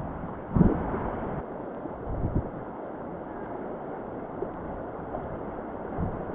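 River water rushing around a kayak, with wind buffeting the microphone. A thump about half a second in is the loudest sound, with smaller ones a little after two seconds and near the end.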